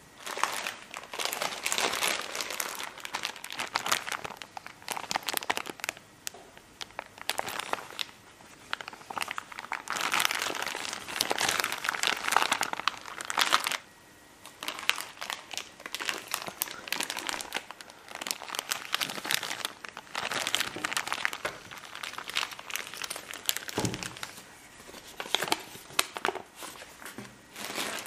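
Bubble wrap and plastic packaging crinkling and rustling in irregular handfuls as parts are unpacked from a cardboard box, with a brief pause about halfway through.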